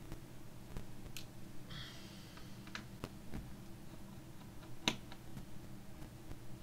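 Scattered small clicks and a short scratchy scrape of a small screwdriver and fingers working on a laptop's plastic palmrest and connectors during disassembly, with one sharper click about five seconds in.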